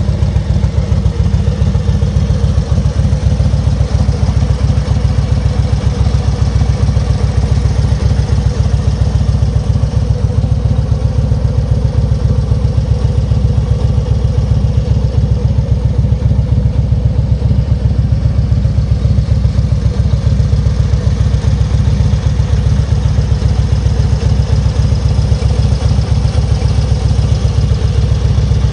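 Harley-Davidson Street Glide's Twin Cam 103 V-twin engine idling steadily through Cobra aftermarket mufflers.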